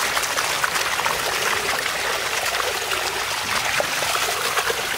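Water poured in a steady stream over a woven basket tray of eels, splashing over and through them as they are rinsed.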